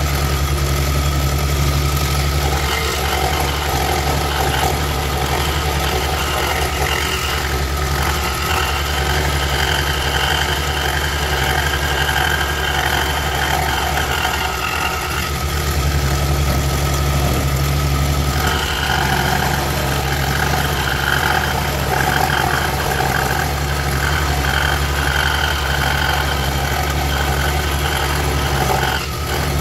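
Woodstar SD 16 scroll saw running, its blade reciprocating through a wooden board as the work is fed along a pattern: a steady motor hum with a cutting noise that changes as the board is turned.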